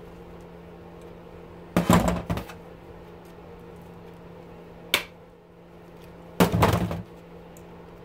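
Metal clanking and rattling as a small electric motor's steel shell is handled and pried at a bench vise: one burst about two seconds in, a single sharp click around five seconds, and a second burst near the end. A steady low hum sits underneath throughout.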